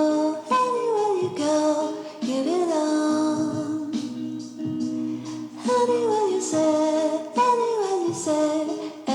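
Background music with a female voice singing a gently falling melody.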